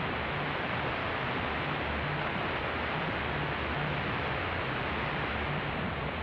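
Racal RA-17 shortwave receiver putting out steady hiss and static while tuned to a very weak 15140 kHz signal, the broadcast voice faded down into the noise.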